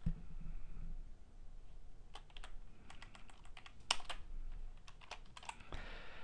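Scattered keystrokes on a computer keyboard, a few at a time with pauses, as a line of code is cut and pasted in an editor.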